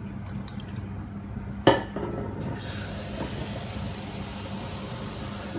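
Kitchen handling sounds: a single sharp knock about a third of the way in, then a steady hiss sets in over a low steady hum.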